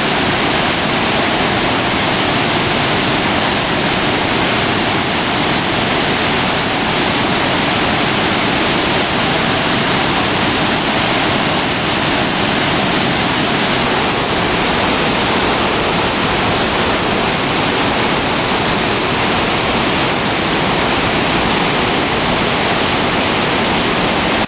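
Spokane River falls running high near flood stage: a steady, unbroken rush of white water.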